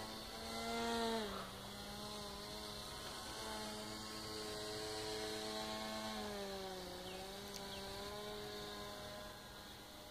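Motor and propeller of a radio-controlled paracopter flying overhead: a steady buzzing hum whose pitch drops about a second in and drops again around seven seconds.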